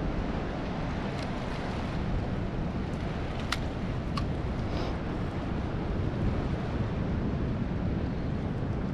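Surf washing against the jetty with wind buffeting the microphone: a steady, low rushing noise. Two sharp clicks near the middle.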